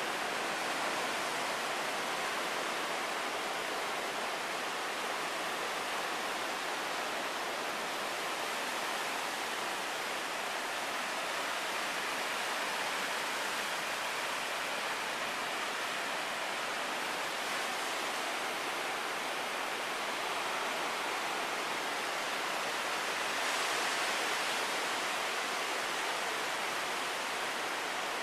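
Ocean surf: a continuous wash of breaking waves, swelling a little louder about two-thirds of the way through.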